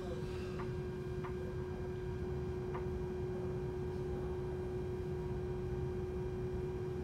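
Wrightbus StreetDeck Hydroliner hydrogen fuel-cell double-decker bus heard from its upper deck: a steady hum over a low rumble. A few faint short chirps come in the first three seconds.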